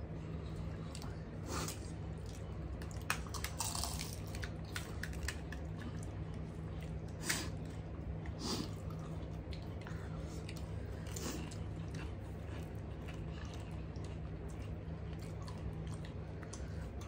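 Crisp gol gappa (pani puri) shells being cracked open by hand and eaten, with chewing and scattered sharp crunches, the loudest about seven seconds in. A steady low hum runs underneath.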